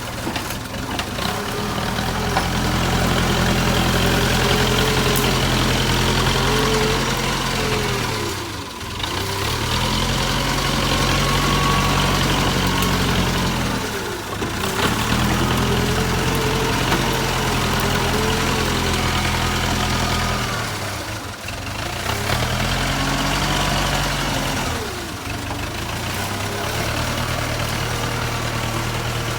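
Diesel engine of a JCB 3CX backhoe loader working. It picks up and runs louder for several seconds, then drops back, about four times, with a whine rising and falling in each loud stretch.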